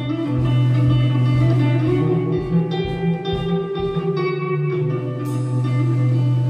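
Electric guitar playing: picked notes over a sustained low note.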